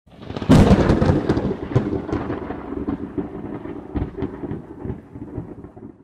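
Thunderclap breaking about half a second in, then a long crackling, rolling rumble that slowly dies away.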